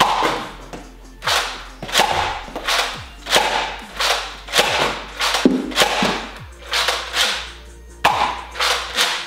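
Nerf Rival Artemis pump-action blaster being pumped and fired again and again, a sharp sound about every half second to a second, with a pause of about a second near the end.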